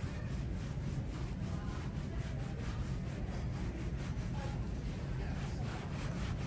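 Shoe-shine brush scrubbing back and forth over a black leather shoe in quick, even, repeated strokes.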